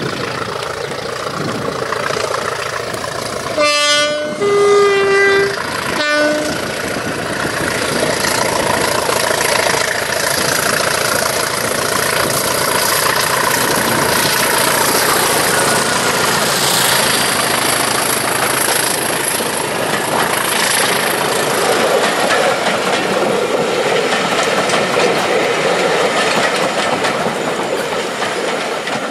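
English Electric Class 20 diesel locomotive sounding its two-tone horn, low-high-low, about four to six seconds in, then running past hauling a train of coaches. The engine runs steadily and the coach wheels clatter over the rail joints.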